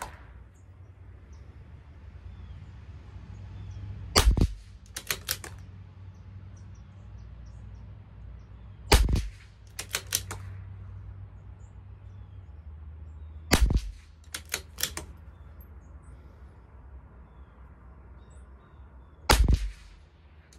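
Four shots from a CZ 457 LRP .22 LR bolt-action rifle firing Geco ammunition, spaced about four to six seconds apart. Each shot is followed by a quick series of clicks as the bolt is worked to eject the case and chamber the next round. These are fouling shots at the start of an ammunition test.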